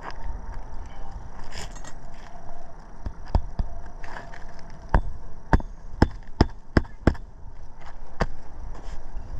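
Hammer driving roofing nails back into lifted asphalt shingles: about ten sharp taps, irregularly spaced, from about three seconds in until near the end, with wind on the microphone underneath.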